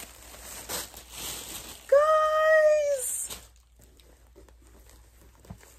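A woman's drawn-out, delighted "ooh," held on one high pitch for about a second, starting about two seconds in. Before it comes the rustle of plastic wrapping and satin fabric being handled.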